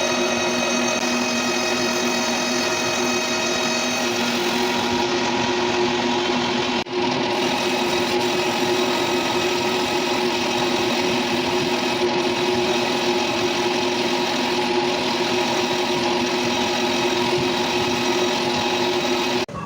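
Metal lathe running steadily while machining a pulley, a machine hum with a steady whine over cutting noise. The sound drops out briefly about 7 s in and changes abruptly just before the end.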